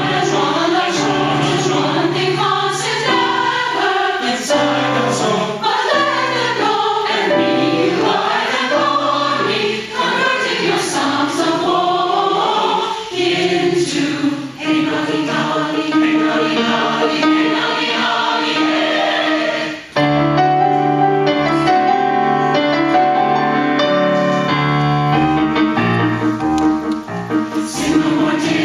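Mixed-voice choir singing a madrigal in several parts. The voices break off briefly about two-thirds of the way through, then come back in together.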